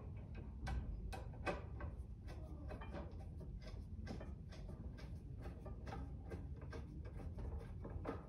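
Hand screwdriver turning a screw through a metal tube into a wooden cross piece: a run of small, irregular clicks and taps, two or three a second.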